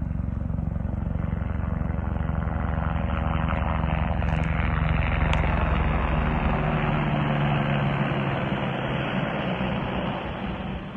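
A helicopter running close by: a rapid low beating from the rotor under a steady engine tone. The low beating fades about two-thirds of the way through, and the whole sound drops away near the end.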